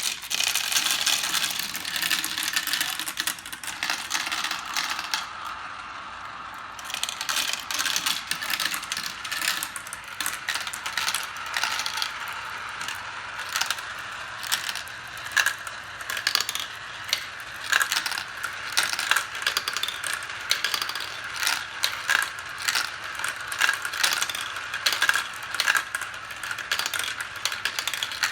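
Marbles rolling along a marble run track: a continuous rolling rattle broken by many quick, irregular clicks and clacks as they run over the track's joints, turns and drops.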